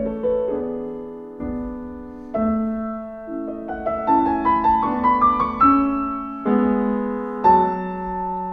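Piano music: a slow, gentle melody of struck notes over changing chords.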